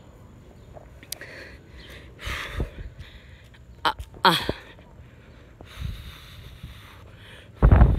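A person's breathy vocal sounds: a sharp breath about two seconds in and a short falling squeal-like glide about four seconds in. Loud low thumps on the phone's microphone near the end.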